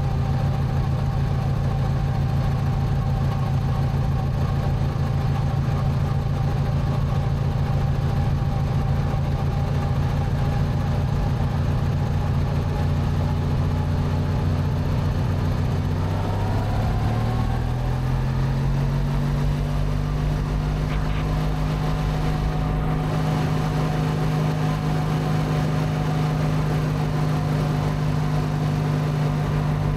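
Racing lawn mower's Briggs & Stratton twin-cylinder engine running steadily while driving; a little past halfway its pitch rises over a few seconds and holds higher as it speeds up.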